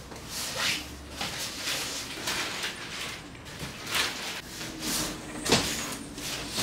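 Packaging and parts being handled while an electric dirt bike is unboxed: a string of short scraping and sliding sounds, one every half second to a second.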